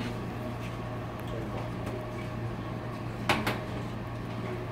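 Stainless-steel kitchenware knocking: two quick clanks close together about three seconds in, over a steady low hum.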